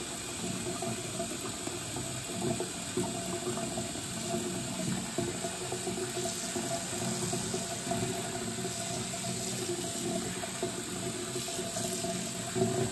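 Tap water running steadily from a sink faucet and splashing into the basin.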